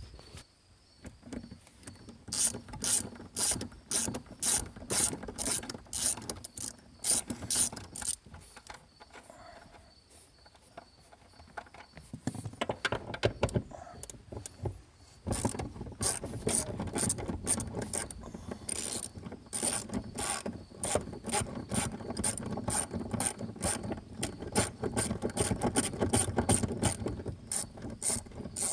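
Hand ratchet wrench clicking in quick runs as it loosens the car's seat mounting bolts, with a couple of short pauses between runs.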